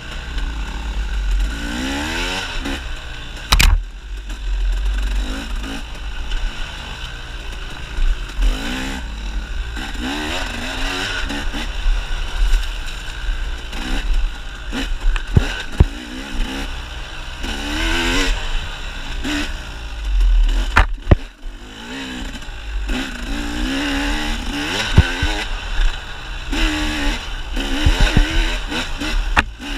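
Dirt bike engine revving up and dropping back again and again as it is ridden along a rough trail, with a few sharp clunks and wind rumble on the microphone.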